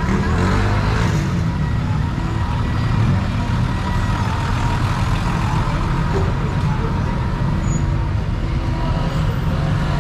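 City bus engine running close by as the bus moves past, over steady street traffic; a deep, continuous rumble.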